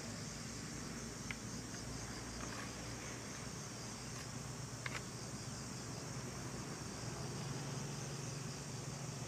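Steady high-pitched insect chorus, with a low steady hum underneath and a couple of faint clicks.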